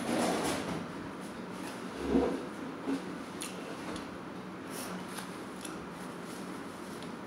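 Household handling noises: a dull thump about two seconds in and a few scattered light clicks and knocks as a person comes to the table and sits down to eat.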